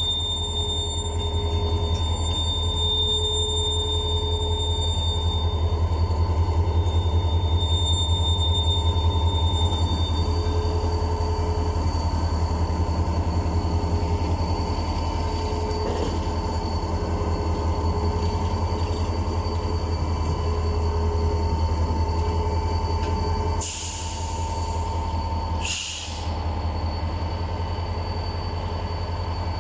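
Diesel locomotives rolling slowly past at close range, their engines and running gear making a steady low rumble, with thin steady high-pitched tones over it. Two short hisses come near the end.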